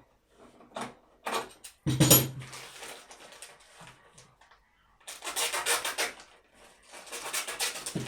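The bar, chain and plastic side cover of a cordless chainsaw being handled. There are a few light clicks, a loud knock about two seconds in, then two stretches of rattling and scraping as the metal chain is moved about, near the middle and again near the end.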